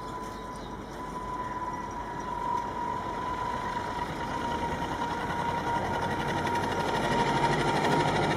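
Express train hauled by a WAP-5 electric locomotive approaching at speed, its running and track noise growing steadily louder with a rhythmic clatter. A steady high tone is held throughout.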